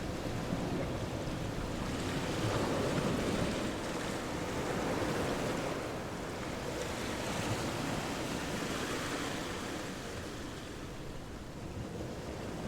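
Ocean surf washing ashore in slow swells, with wind on the microphone.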